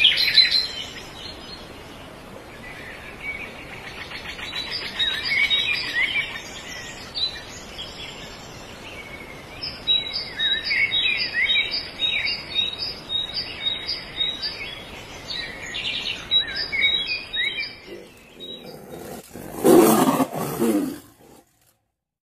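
Forest birds chirping and calling, one repeating a short high note about three times a second. Near the end, a loud noisy sound lasts about a second and a half.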